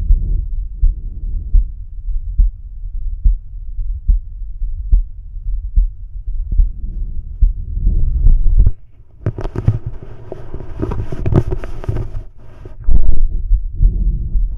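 A man's heartbeat heard through a stethoscope bell: steady, repeating low beats. A little past halfway the beats give way to a few seconds of rubbing and scraping as the chestpiece shifts on the skin, then the heartbeat returns.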